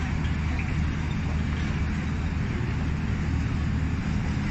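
Pakistan Railways passenger coaches rolling slowly past along the platform as the train pulls out, a steady low rumble with a constant hum underneath.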